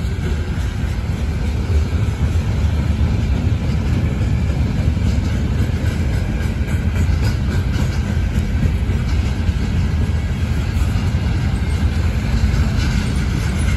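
Freight train cars rolling past: a loud, steady rumble of steel wheels on the rails, strongest in the low end. The cars are a mixed manifest of boxcars, a tank car and covered hoppers.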